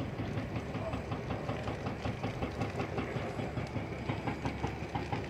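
Dry bushes burning, with dense, irregular crackling over a low rumble.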